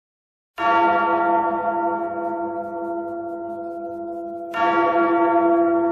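A large bell tolling: two strokes about four seconds apart, each ringing on and slowly fading.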